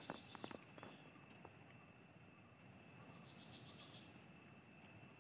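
Faint insect chirping: a burst of rapid pulsed trilling at the start and another about three seconds in, over a thin steady high tone, with a few light clicks near the start.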